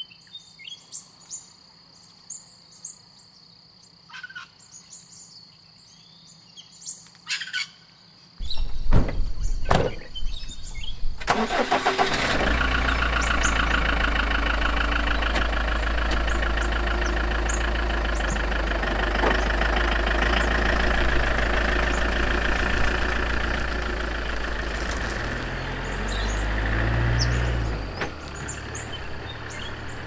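Birds chirping over a steady high insect drone. About eight seconds in come a few knocks, and a few seconds later the campervan's engine starts and runs steadily with a deep hum, changing and easing off near the end.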